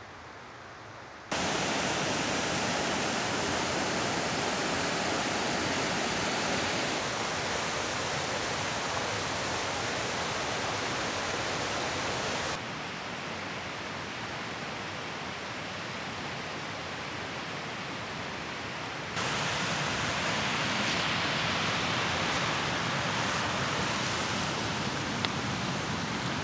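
River water rushing over rocky rapids, a steady rush. It jumps louder about a second in, then drops and rises again a few times.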